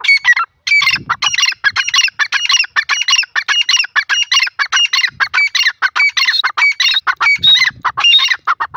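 Grey francolin calling: a long, loud run of short repeated notes, several a second, after a brief break just after the start.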